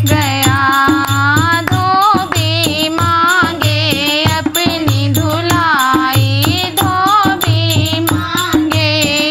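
Women singing a sohar, a Hindi folk song for a childbirth, to a dholak. The drum plays steady, deep strokes, and hand clapping keeps the beat.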